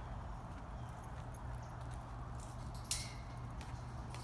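A small vehicle moving slowly, running with a steady low hum, with a short burst of high hiss about three seconds in.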